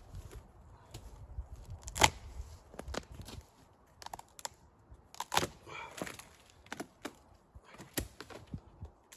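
Scattered sharp clicks and knocks, the loudest about two seconds in and again just after five seconds, over a low rumble that dies away after about three and a half seconds.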